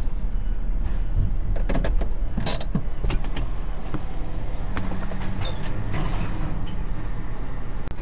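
Vehicle engine idling steadily while stopped, heard from inside the cab, with a few scattered clicks and knocks.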